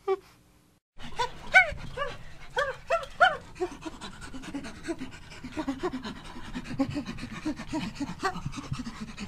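Chimpanzee panting calls. After a short gap near the start, a few loud, pitched hooting calls come in, followed by a fast run of short, breathy pant calls, several a second.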